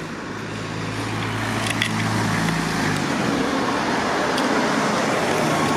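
Street traffic: the wash of passing cars, growing louder over the first few seconds, with a vehicle engine's low steady hum under it that stops about three seconds in.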